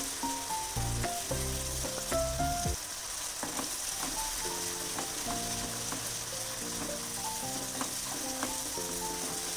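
Onion, tomato, ginger and garlic masala sizzling steadily in hot oil in a kadhai, stirred and scraped with a wooden spatula; it is being fried until the oil separates. Soft background music with a slow melody plays underneath.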